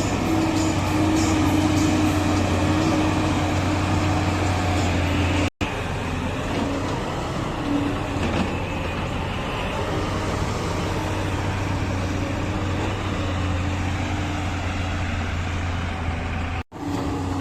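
Diesel engine of a working backhoe loader running steadily with a low hum, cutting out for an instant twice.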